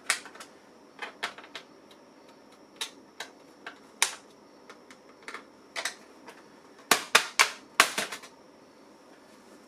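Irregular sharp clicks and taps from handling small laptop parts, with a quick run of louder clicks about seven seconds in.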